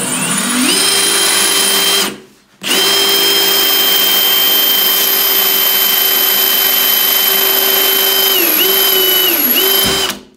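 Milwaukee M18 Fuel cordless drill run wide open with a quarter-inch Lenox bit, boring through porcelain wall tile: a steady motor whine that runs for about two seconds, stops briefly, then runs for about seven seconds more. Near the end the pitch dips twice as the bit loads up in the tile, and then it stops.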